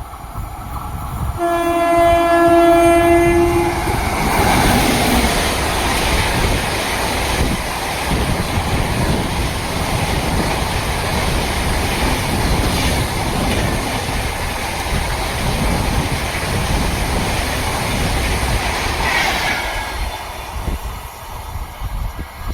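Train horn sounding one steady note for about two seconds, then a train passing at speed with a loud, steady rush of wheels and cars that eases off near the end.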